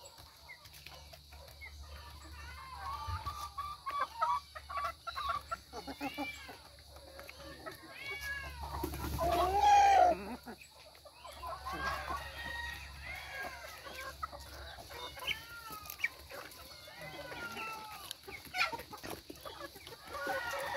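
Chickens clucking while they peck at split coconut, a steady run of short clucks with a few sharp clicks. About nine seconds in comes one louder, longer call that rises and falls.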